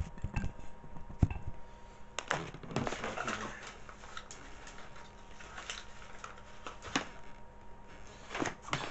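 Handling noise from a phone being set down and propped up on a wooden floor: a few sharp knocks in the first second or so, then scattered light taps and rustling, with more clicks near the end.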